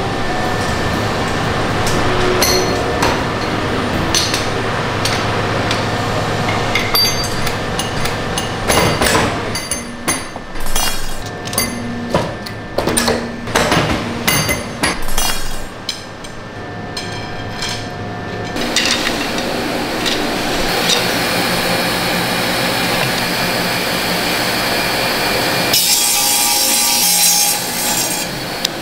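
Workshop machine hum, then a run of sharp metal knocks and clinks as steel parts and a rod are worked in a steel jig. From about two-thirds of the way in, a water-cooled circular cutting wheel runs steadily and grows louder and higher near the end as it cuts carbon fishing-rod blanks.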